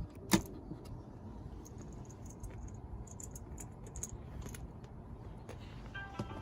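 Small plastic clicks and taps of multimeter probes being handled and touched to fuses in a car's fuse box. One sharper click comes about a third of a second in, over a low steady hum.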